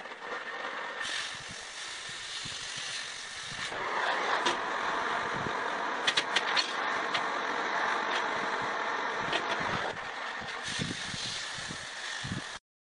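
Cutting torch hissing steadily as it cuts vent shapes out of a small metal disc. A few sharp metallic clicks come in around the middle.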